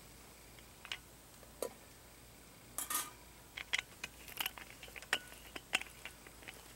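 Light metal clinks and taps as the lid of a stainless steel cup is lifted off and set down on a wire grill rack: scattered single clicks, the loudest about 3 s in, then a quicker run of small knocks.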